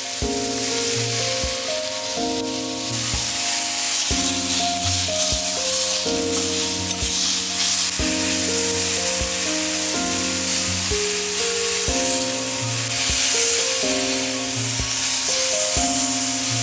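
Background music with a steady beat, over meat sizzling on a hot steel griddle.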